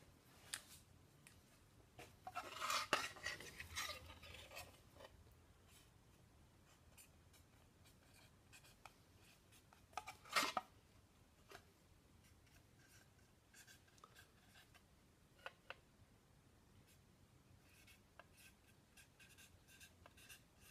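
Permanent marker writing on a stainless steel sheet, faint short squeaking strokes, with a few louder clicks and handling knocks, the sharpest about ten seconds in.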